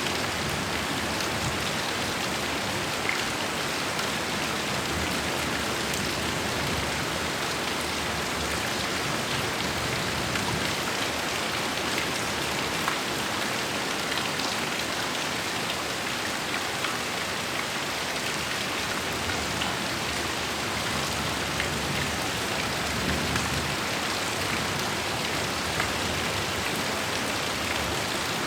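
Heavy rain falling steadily, a dense even hiss with scattered individual drops ticking.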